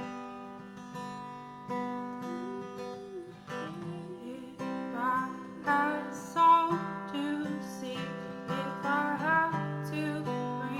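Acoustic guitar strumming chords. About halfway through, a wordless sung melody joins over the guitar.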